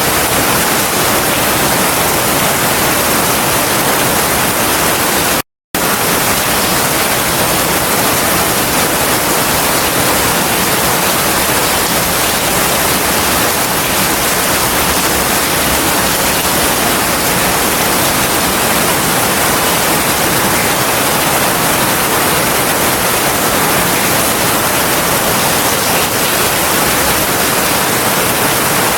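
Heavy rain falling steadily as a dense, even hiss, with no thunder. The sound cuts out completely for a split second about five and a half seconds in, then resumes unchanged.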